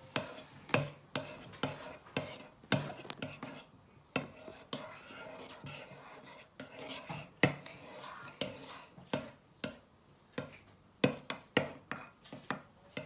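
Metal spoon stirring thick glue and paint in a ceramic bowl, clinking and scraping against the bowl in irregular knocks about every half second, with a quieter patch midway.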